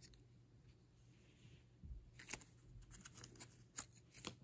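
Faint handling noises: near silence, then from about two seconds in a scatter of soft clicks and rustles as a small plush toy is handled.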